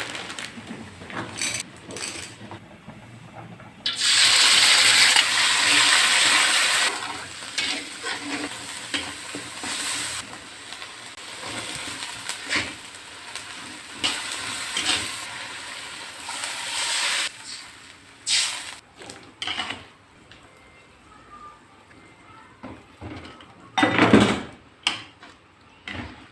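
Kitchen cooking sounds: food hitting hot oil and sizzling loudly for a few seconds, then frying more quietly, with stirring and clinks of utensils on the pan. A loud knock comes near the end.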